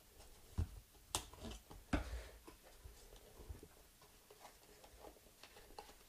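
Small cardboard cube box being opened and handled: a few scattered scrapes and taps of cardboard and paper, with quiet stretches between.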